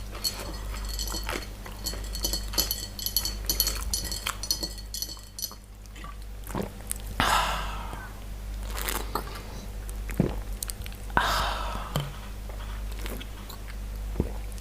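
Close-miked chewing and wet mouth clicks of a person eating, with two breathy noises about seven and eleven seconds in, over a steady low electrical hum.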